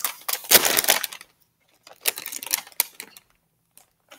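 A potato chip bag being torn open: a loud crinkling rip in the first second, then scattered crinkles and crackles as the opened bag is handled.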